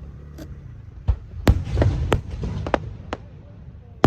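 Aerial fireworks bursting: a string of sharp bangs and pops at uneven intervals over a low rumble. The loudest bang comes about a second and a half in, with another sharp one near the end.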